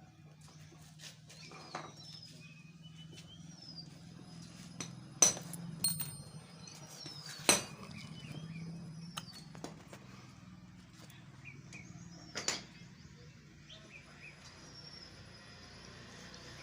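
A few sharp metallic clinks and knocks, three of them loud, over a low steady hum, with birds chirping throughout.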